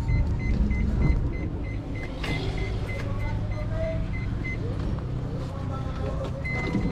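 Rapid, evenly spaced high-pitched beeping from a minivan's automatic sliding door, over a steady low hum. The beeping stops about two and a half seconds in and starts again near the end with a longer first tone.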